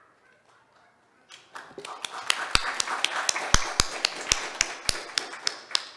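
Small audience applauding, starting about a second and a half in and fading out at the end, with a few loud single claps standing out from the rest.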